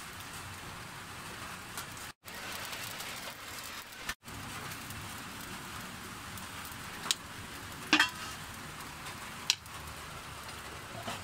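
Steady hiss of rain falling, cut off for an instant twice early on, with a few sharp clicks in the second half.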